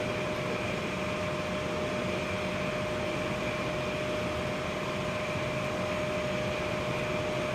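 Daikin gas furnace running: a steady whir of its fans with a constant hum-like tone over it, unchanging throughout.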